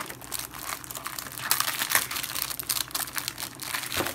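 Plastic bag of Red Vines licorice crinkling and rustling in irregular crackles as it is handled and opened by hand.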